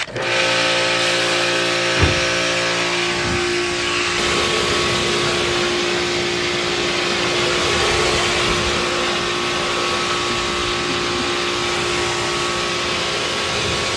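Pressure washer running steadily, its motor and pump humming under the hiss of the water jet, with one short knock about two seconds in.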